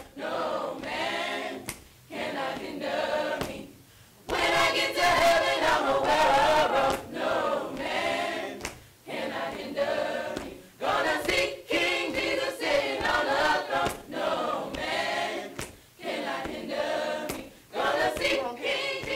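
Gospel choir of women's and men's voices singing together in short phrases with brief breaks between them.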